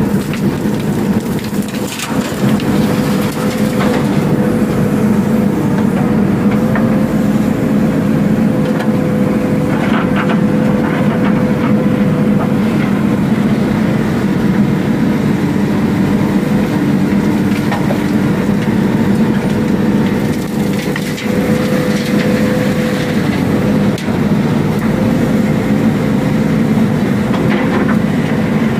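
JCB backhoe loader's diesel engine running steadily, heard from inside the cab while the backhoe controls are worked, with a steady tone that wavers slightly. A few sharp knocks are heard.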